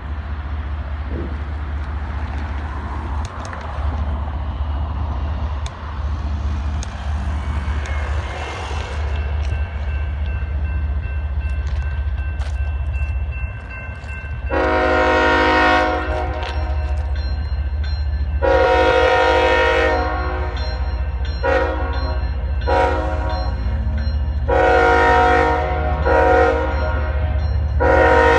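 CSX freight locomotive's air horn sounding a series of loud blasts, long and short, starting about halfway through, over a steady low rumble.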